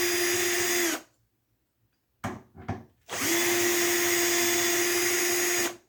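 Cordless drill/driver running steadily with a high whine, backing out a screw holding the ice maker's water valve. It stops about a second in, a few sharp clicks follow, then it runs again for nearly three seconds.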